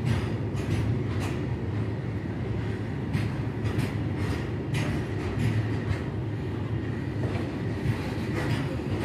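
Freight train rolling slowly past: a steady low rumble broken by irregular clacks of wheels over rail joints.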